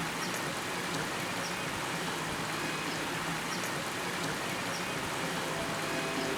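Steady rain falling, an even hiss with faint short high chirps now and then.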